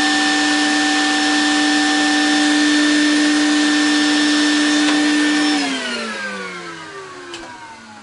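Vacuum cleaner running steadily as its hose nozzle sucks dust out of a gas furnace's burner compartment. It is switched off about five and a half seconds in, and its motor hum falls in pitch and fades as it spins down.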